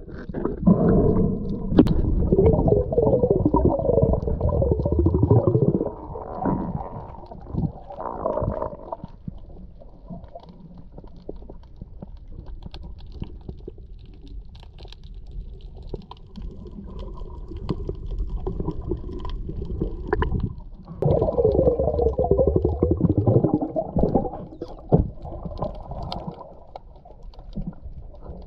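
A diver grunting underwater to draw in gag grouper: long, low, rumbling grunts heard through the water, the first lasting several seconds, a short one about eight seconds in, and another starting about twenty-one seconds in. Between the grunts there is quieter underwater hiss with faint ticking.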